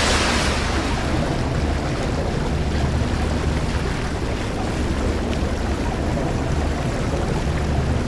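Sound-designed underwater water rush: a loud, steady churning of water with a deep rumble beneath. It is brightest and hissiest at the start, then settles.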